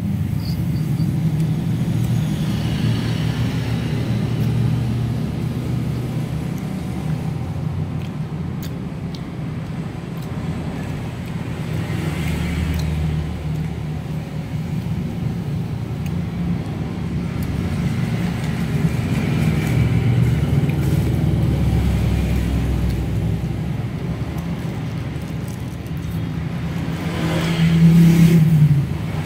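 A steady low mechanical rumble that swells and eases, loudest about a second before the end.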